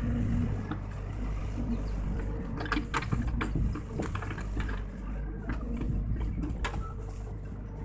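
Sany SY55C mini excavator's diesel engine running steadily under load while it swings and digs in mud. Several sharp clanks are heard, a cluster a little under halfway through and another near the end.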